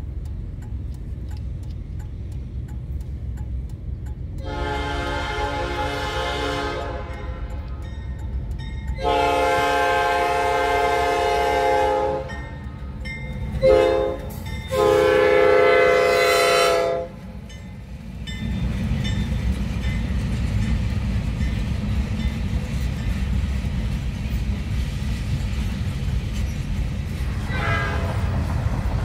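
Freight train locomotive air horn sounding the grade-crossing signal: two long blasts, a short one and a long one. Then the train's freight cars rumble and clatter steadily past on the rails.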